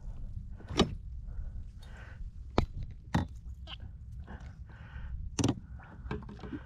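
Several sharp knocks and thuds, spaced a second or two apart, over a steady low rumble.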